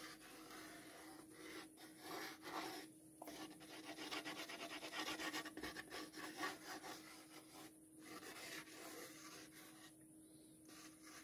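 Plastic glue bottle squeezed, its nozzle dragged across an MDF panel while laying beads of glue: a faint scratchy rubbing with a fine crackle, busiest in the middle of the stretch.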